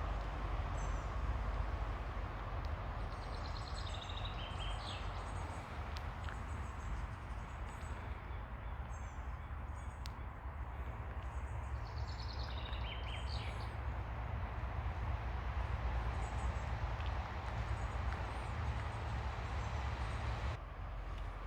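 Ocean waves washing on a beach, a steady hiss with a low rumble underneath. A bird chirps in two short runs of calls, about four and twelve seconds in.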